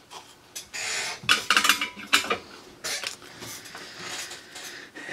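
Small metal tools clinking and scraping on a workbench: a run of irregular light clicks and rattles, busiest in the first half, with scattered taps and rubbing after.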